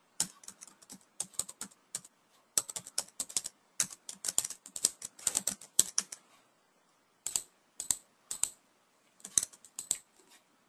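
Typing on a computer keyboard: quick runs of key clicks with a couple of short pauses, as a server name, username and password are typed.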